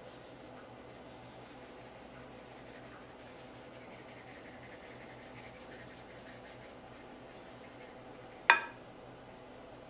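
Granulated sugar sprinkled from a measuring cup over custard in a baking dish, a faint soft rustle. Near the end comes a single sharp clink.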